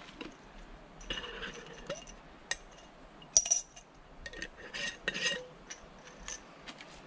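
Coin and glass honesty-box jar clinking as its metal screw lid is worked open, with a sharp clink about three and a half seconds in. Light rustling of a plastic bag follows.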